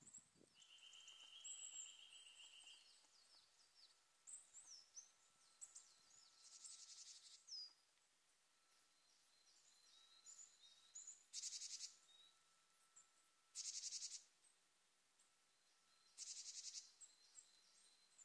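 Small forest songbirds calling faintly: thin high chirps and trills, a short buzzy call near the start, and from the middle on a harsh, rasping burst repeated about every two to three seconds.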